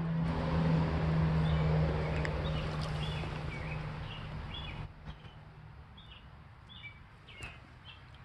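Legs wading through shallow creek water, a steady splashing and sloshing that stops suddenly about five seconds in. Small birds chirp throughout.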